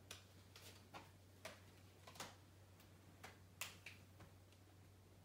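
Near silence with about half a dozen faint, scattered clicks and rustles as a plastic oxygen reservoir mask and its tubing are handled and fitted onto a face, over a low steady hum.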